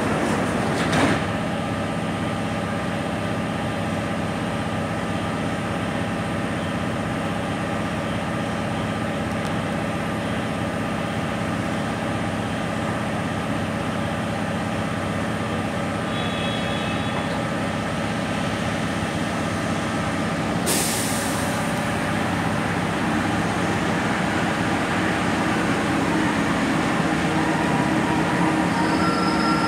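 Steady hum of an Alstom NS-93 metro train's equipment while it stands at a platform, with a short, sharp hiss about two-thirds of the way through. Near the end a train on the next track pulls in and the sound grows louder.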